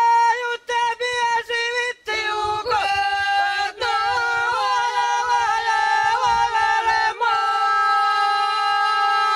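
Ojkavica: women's voices singing unaccompanied in close two-part harmony. A single held note breaks off in short phrases at first, then both parts enter together about two seconds in, with quick shaking ornaments in the middle and a long held chord near the end.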